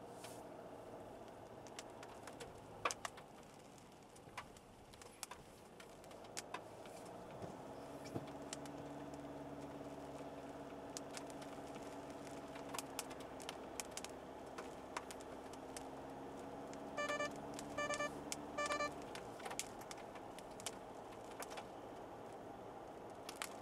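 Cabin sound of a SsangYong All New Rexton SUV on the move: a low engine hum comes up about eight seconds in, holds steady and drops away a few seconds before the end, with scattered light ticks throughout. Three short electronic chimes sound in quick succession about two-thirds of the way through.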